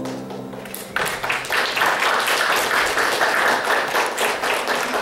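A held musical note ends about a second in, and an audience breaks into applause, a dense, steady clapping that carries on.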